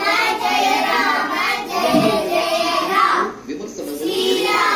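A group of children singing a devotional chant of Rama's name together, in phrases with a brief break a little past three seconds in.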